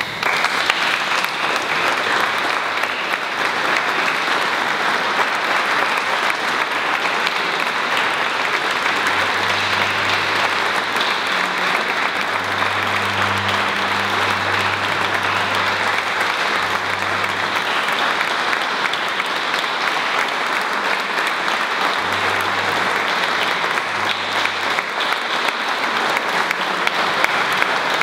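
Audience applauding, breaking out at once and keeping up steadily.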